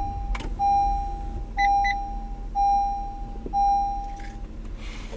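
2018 Honda Odyssey's dashboard warning chime: a steady beep repeating about once a second, stopping about four and a half seconds in, with two short higher beeps about halfway through. The engine runs low underneath, just after starting.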